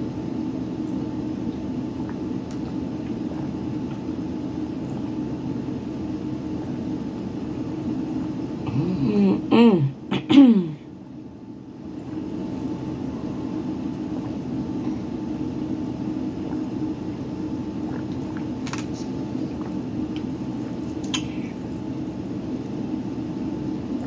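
Steady low hum of a small room. About nine seconds in it is broken by a brief voiced sound from a person, like clearing the throat, and a couple of faint clicks follow later.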